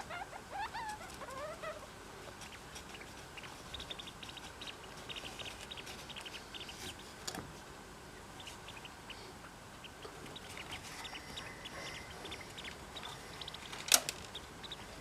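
A pet degu sneezing: one sharp, brief sneeze near the end, the loudest sound, with a smaller one just after. Before it come short chirps in the first couple of seconds and a spell of quick, light ticking.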